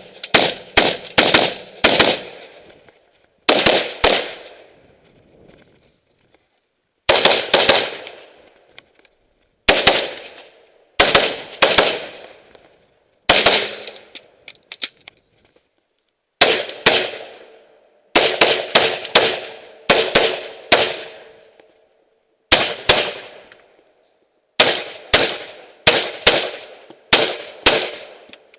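AR-15 rifle fired semi-automatically in quick strings of two to five shots, with pauses of a second or two between strings. Each shot has an echoing tail.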